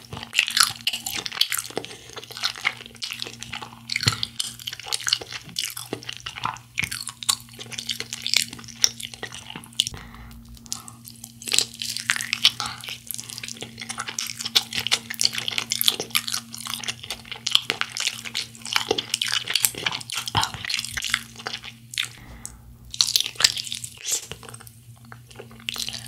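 Close-miked eating of sauce-coated fried chicken: irregular bites, crunching and chewing of the coating, with a faint steady low hum underneath.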